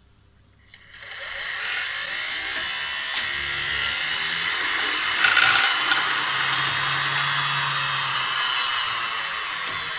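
A sewing machine's electric motor starting about a second in, spinning up and running at speed with a steady whirring, briefly louder about five seconds in.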